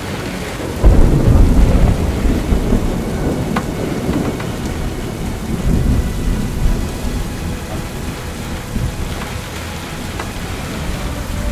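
A thunderclap about a second in, its deep rumble rolling on and slowly fading, over steady rain during a thunderstorm.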